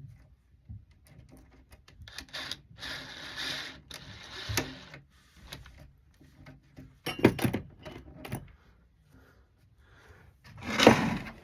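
Screws being driven to fix a door-hardware jig to the door: two short noisy bursts about three seconds in, then scattered clicks and knocks of handling, and another short burst near the end.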